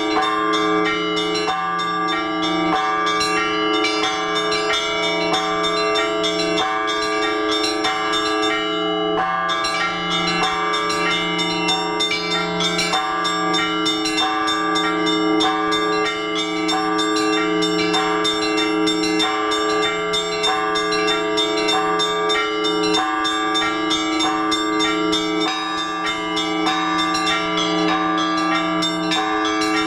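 Russian Orthodox church bells rung by hand in a full peal for the Liturgy: several bells together, small bells struck rapidly in a repeating pattern over the long hum of larger bells, which sound every second or two.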